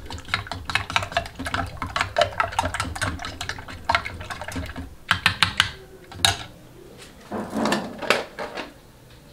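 Metal spoon beating eggs in a bowl, clicking quickly against the bowl's sides at about five or six strokes a second with a few short pauses. The clicking stops about six seconds in, and a short, duller rustle follows near the end.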